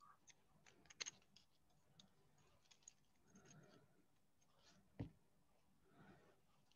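Near silence with a few faint, scattered clicks and a soft rustle of white tape being wound round the wired stem of a handmade flower spray.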